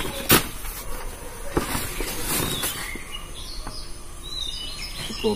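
A heavy PVC-coated nylon pond-liner sheet rustling and crackling as it is handled and spread over a tarpaulin lining, with one sharp crack about a third of a second in. Birds chirp faintly in the background.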